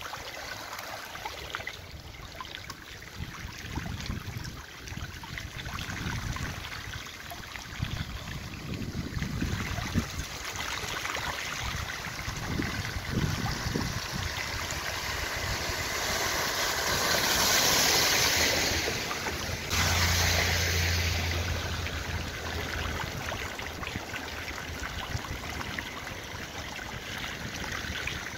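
Floodwater running over a street, with wind buffeting the microphone. About two-thirds of the way in, a car drives through the flooded road, the hiss of its tyres throwing up water swelling loud, followed by a brief low engine hum.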